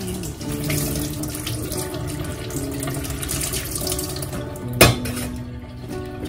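Water poured from a metal cup over grapes in a plastic colander, splashing into a stainless steel sink, with soft background music. A single sharp knock comes about three-quarters of the way through.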